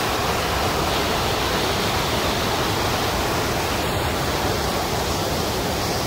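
Flood-swollen river water pouring over a weir and churning down over rocks: a steady, loud rush of white water.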